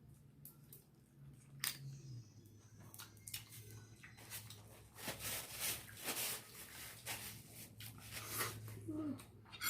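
Close-miked eating sounds: chewing and lip smacking on seafood, with scattered sharp clicks, busiest in the second half, over a low steady hum.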